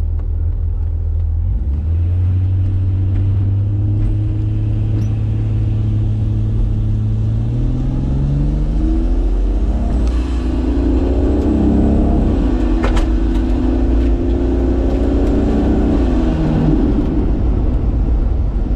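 Turbocharged 2JZ six-cylinder engine of a Holden VH Commodore running under load on a drag strip: a steady drone that climbs in pitch about eight seconds in, holds high for several seconds, then drops back near the end. A single sharp crack sounds partway through the high-revving stretch.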